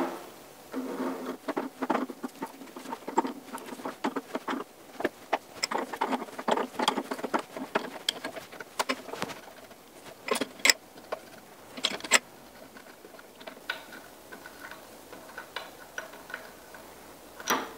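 Hand-tapping a threaded hole with a spiral flute tap, turned with an adjustable wrench in a drill press tap guide: irregular clicks, ticks and small metal-on-metal scrapes as the tap cuts and the wrench shifts, with a few sharper clinks about ten, twelve and seventeen seconds in.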